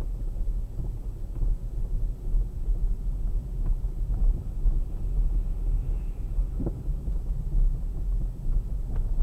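Steering rack of a third-generation Kia Sportage knocking: a low, irregular rumble of thuds with a few sharper knocks, the sign of a worn steering rack.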